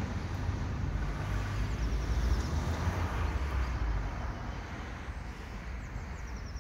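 A vehicle passing by as a noisy rumble, loudest a little over two seconds in, then fading away.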